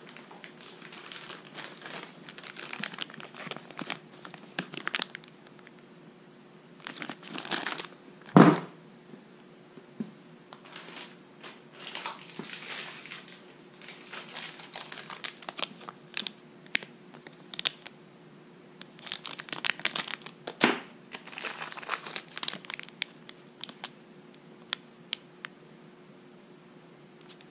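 Plastic retail bags holding small brass pipe fittings crinkling in irregular handfuls as they are handled and set down. A sharp knock about eight seconds in is the loudest sound, with a smaller knock about twenty seconds in.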